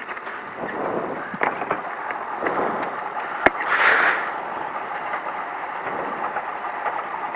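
Cab noise of a Ford Ranger desert race truck after something in it has broken, which the crew suspects may be a gear: a steady rushing noise with scattered rattles and clicks, and one sharp knock about three and a half seconds in.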